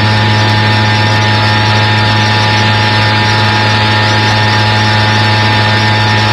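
Loud, steady buzzing hum over hiss from an FM radio receiver tuned to a noisy signal, with a strong low hum and fainter steady tones above it and no speech.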